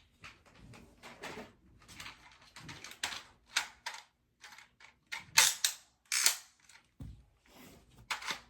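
Plastic clicking and clacking from a toy foam-dart blaster being handled and readied to shoot, a run of sharp clicks with the loudest clacks a little past halfway.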